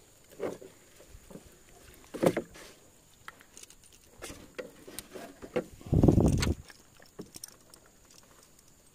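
Scattered knocks, clicks and rattles of handling in a small fishing boat, with a sharp knock about two seconds in and a louder, rough thud-like burst lasting about half a second around six seconds in.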